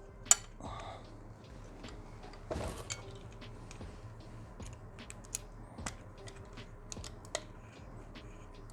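Small metal parts clicking and clinking as an engine-guard bolt and spacer are fitted by hand into the bracket. One sharp click comes just after the start, and a short rustling scrape about two and a half seconds in.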